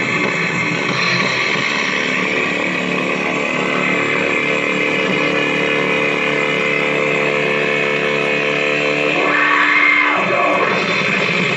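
Metal band playing live: heavily distorted electric guitars and drums, loud and dense, with a sliding drop in pitch about ten seconds in.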